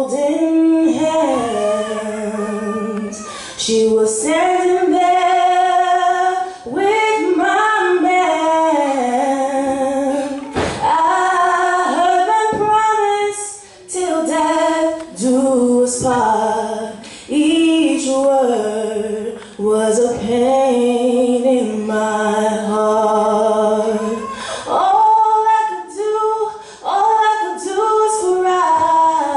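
A young woman singing solo into a microphone without accompaniment: long held notes with vibrato, in phrases broken by short pauses for breath.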